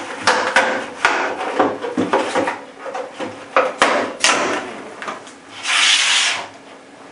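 Rigid clear plastic clamshell packaging being pried open and handled, a run of sharp crackles and clicks. About six seconds in, a short loud rustle of a plastic bag being pulled out.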